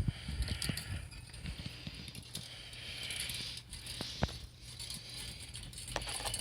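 Handling noise from fitting LED light strips and their wiring to a bicycle frame: scattered small clicks and light rattling, with a few sharper clicks about four and six seconds in.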